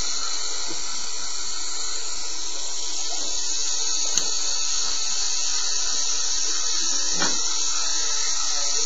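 Small electric motor of a Lego model helicopter running steadily with a high-pitched whine and hiss.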